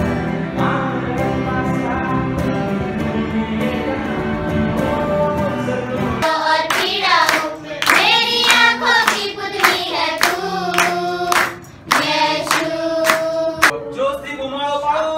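Live music with a guitar and a singer, with a full bass; about six seconds in it cuts to a group singing together with hands clapping in time.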